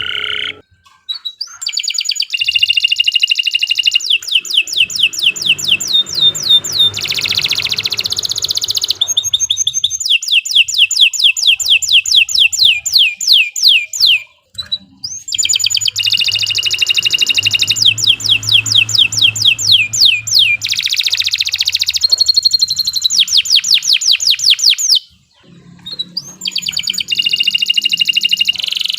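Domestic canary singing a long song of fast trills: rapid runs of repeated downward-sweeping high notes, one phrase after another, with brief pauses about a second in, around the middle, and near the end.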